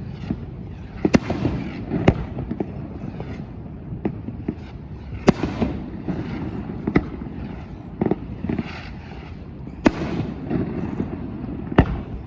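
Aerial fireworks going off over the harbour: sharp bangs every second or two at irregular intervals, some followed by crackling, over a steady low rumble, with the booms echoing back across the water.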